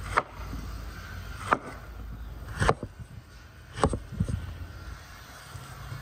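Large cleaver chopping through peeled bananas onto a wooden cutting board: four sharp knocks of the blade striking the board, about a second apart.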